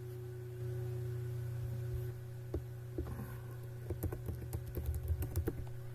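Computer keyboard typing: a few separate key clicks about two and a half seconds in, then a quick run of taps near the end, over a steady low hum.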